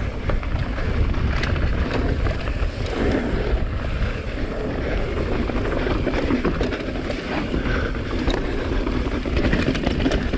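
Mountain bike riding downhill, heard from a camera mounted on the rider: wind rushing over the microphone and the bike rattling and clicking over the bumps of the dirt trail.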